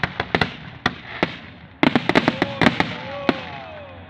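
Aerial fireworks bursting: sharp bangs and crackles, a few spaced out in the first second, then a rapid volley about two seconds in.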